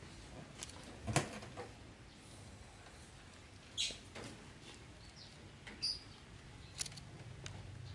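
Scattered light knocks and clicks, the loudest about a second in, with two short high squeaks, one near the middle and one a couple of seconds later.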